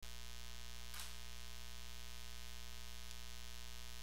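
Steady electrical mains hum with a low hiss in the recording, and a faint short click about a second in.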